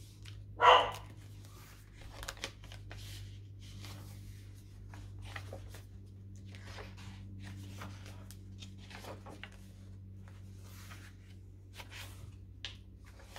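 Paper pages of a handmade junk journal rustling and crinkling as hands turn and smooth them, with a sharper, louder paper crackle about a second in.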